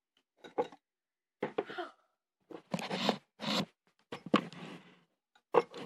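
Handling noise of the tablet that is recording: rustling and scraping in short bursts as it is moved about, with a sharp knock about four seconds in.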